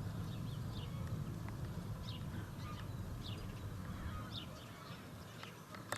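Birds chirping now and then in short falling notes over a steady low rumble that eases near the end.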